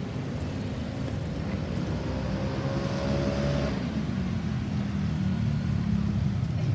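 Road traffic: vehicle engines running with a low rumble that grows louder toward the end. One vehicle's whine rises slowly in pitch and cuts off a little over halfway through.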